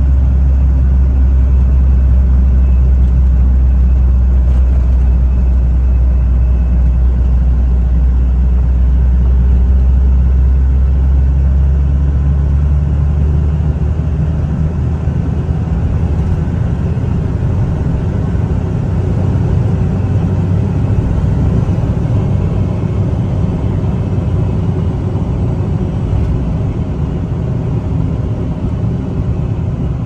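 In-cab sound of a Toyota ToyoAce diesel truck driving on the road: its diesel engine drones with tyre and road noise. A deep, steady drone dominates the first dozen seconds, then gives way to a rougher, broader rumble as the truck gathers speed.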